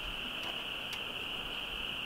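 A steady, high-pitched chorus of calling animals, unbroken throughout, with one faint tap about a second in.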